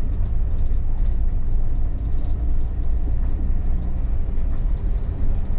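RV's engine and road noise heard from inside the cab while driving, a steady low drone.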